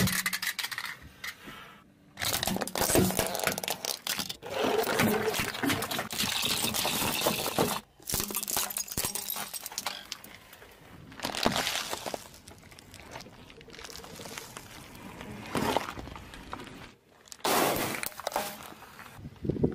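A car tyre rolling over small plastic tubes and markers and crushing them: repeated cracking, crunching and breaking, in several short clips that cut off abruptly.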